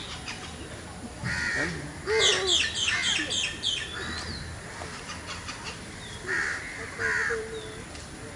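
Crows cawing, a few harsh caws spread out, with a busier run of calls between about two and four seconds in.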